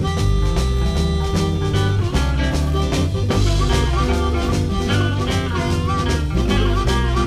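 Electric blues band playing without vocals: bass, drum kit and guitar, with a lead line that bends up and down in pitch from about three and a half seconds in.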